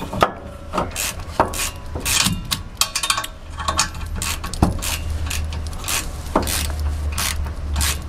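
Ratchet wrench clicking in quick, uneven strokes, with metal scraping, as a rear brake caliper bracket bolt is worked loose.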